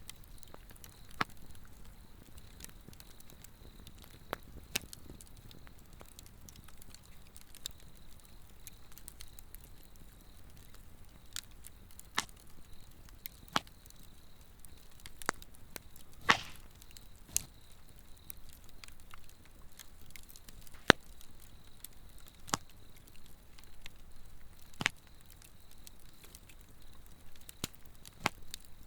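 Swedish torch log burning, its wood crackling with sharp, irregular pops, a dozen or so louder ones spread unevenly through the stretch. Under it runs a steady, high-pitched trill of insects.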